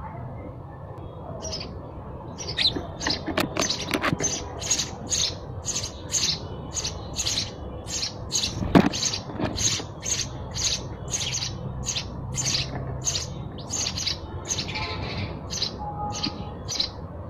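House sparrows chirping: a steady run of short chirps, about two to three a second, with a sharp knock about nine seconds in.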